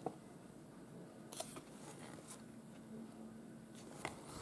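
Faint paper handling as the stiff glossy pages of a thick photo booklet are held and turned: a soft click at the start, then a few fainter ticks and rustles.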